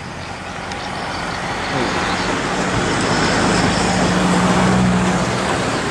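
Road traffic passing close by on the bridge: a vehicle's engine hum and tyre noise swell to a peak about three to five seconds in, with a steady low drone through the middle.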